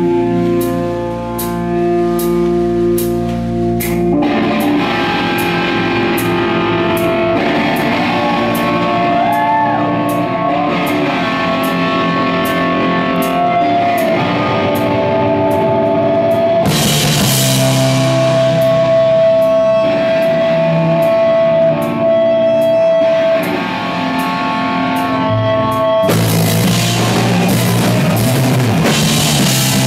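Live rock band playing guitar and drum kit, the drummer keeping a steady cymbal beat. The full band comes in about four seconds in and gets louder with crashing cymbals later on.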